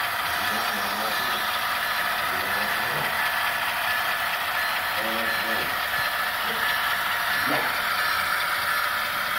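HO scale model diesel locomotives running along the track, their motors, gears and wheels making a steady mechanical whir.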